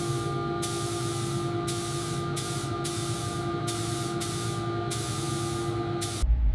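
Hissing spray in repeated on-off bursts over a steady machine hum. It cuts off suddenly near the end, where a deep low rumble takes over.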